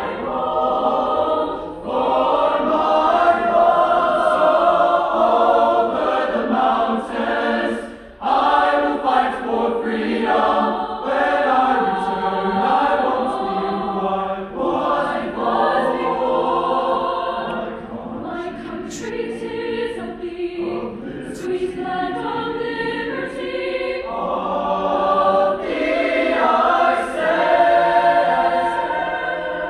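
Large mixed choir of male and female voices singing, with a brief break about eight seconds in before the singing resumes.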